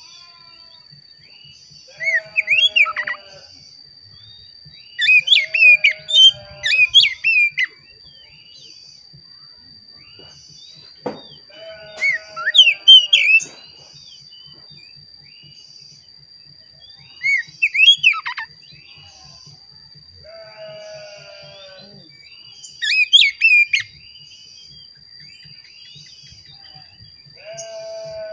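Oriental magpie-robin (kacer) singing loud, clear whistled song phrases, about six bursts of a second or two each separated by pauses of a few seconds. A single sharp click comes about eleven seconds in, and a faint steady high whine runs underneath.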